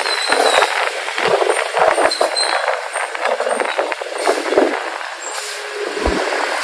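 Motorcycle riding through city traffic, heard from an on-board camera: a continuous noisy rush of road and traffic sound with many small crackles.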